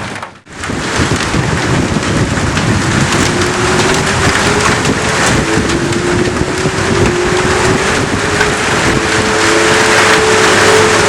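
Heavy rain pouring in a storm, a dense steady hiss that breaks off briefly just after the start. A faint, slowly rising hum runs under it from about three seconds in.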